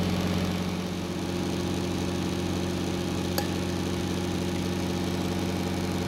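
Steady electrical hum of a running HVAC trainer board, its small fan motor turning a plastic fan blade with the contactor energised. A single light click about three and a half seconds in.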